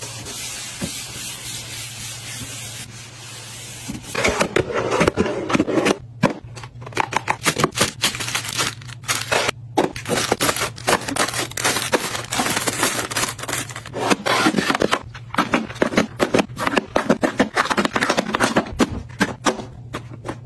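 Plastic packaging and containers being handled: a steady hiss for the first few seconds, then rapid runs of crackling, clicking and scraping, over a low steady hum.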